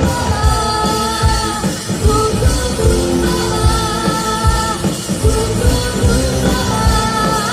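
A live rock band playing: a drum kit keeping a steady beat under held notes, with a singer.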